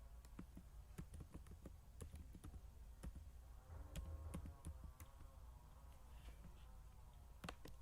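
Faint typing on a computer keyboard: irregular key clicks throughout.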